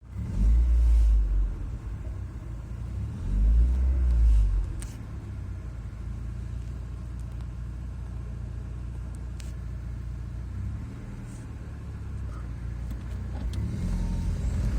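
A car's low rumble, with two louder low surges near the start, each about a second long, then a steadier low hum with a few faint clicks. It is recorded as an abnormal noise.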